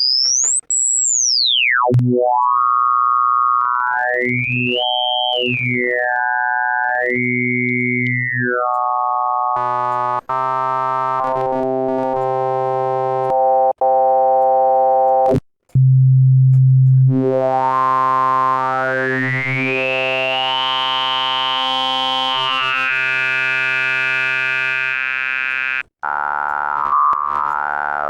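Formant oscillator synthesizer sounding held pitched tones while its resonant peak is swept up and down across the harmonics, several rising-and-falling sweeps. The note changes a few times, with brief breaks between.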